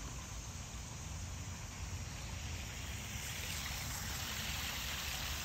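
Small garden pond waterfall splashing. The splash grows louder over the last couple of seconds, over a steady low rumble.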